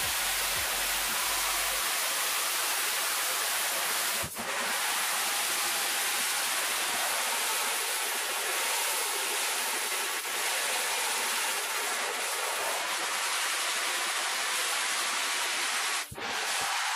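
Water spraying from a handheld shower head onto a screen-printing mesh screen, a steady hiss that breaks off briefly twice, about four seconds in and near the end. The spray is rinsing the unhardened emulsion out of the exposed stencil to open up the design.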